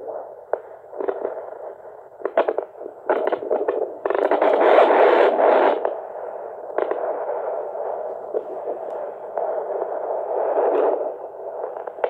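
Handheld fetal Doppler's speaker giving out whooshing static broken by scraping clicks as the probe is worked over the belly in search of the baby's heartbeat, with a louder, denser whoosh from about four to six seconds in.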